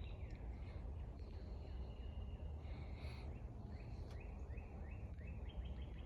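Faint bird chirping outdoors: short repeated chirps, at times in quick runs, over a low steady background.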